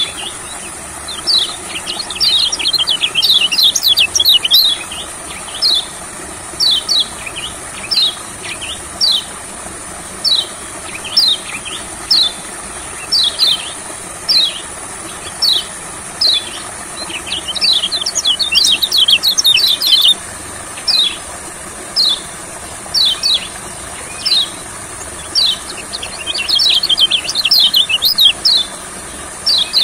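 Kecial kuning, a white-eye, singing: short, high chirps that slide downward, some single and some in fast tumbling runs, over a steady high hiss.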